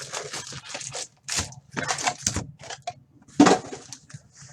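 A sealed box of hockey trading cards being opened and handled: a run of crinkling and tearing of wrap and cardboard, with a louder knock about three and a half seconds in.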